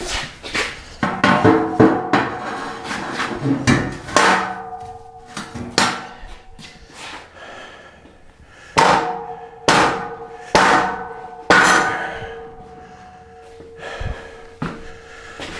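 Steel jig parts being knocked and tapped into place, about a dozen irregular metal clanks, the steel ringing on with a lingering tone after the harder hits, which come in a quick run about two-thirds of the way through.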